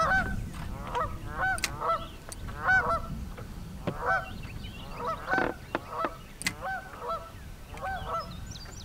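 Geese honking over and over, a call every half second or so.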